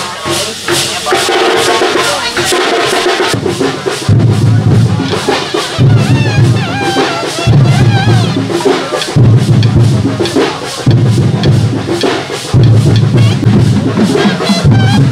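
Music with heavy drumming and a wavering high melody over it, the deep drum strokes coming in repeated phrases about every second and a half.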